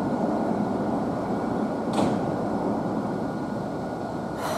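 Tokyo Metro 03 series subway train standing at the platform with its doors shut, running with a steady hum. There is a single sharp click about two seconds in and a short burst of hiss near the end, just before it pulls away.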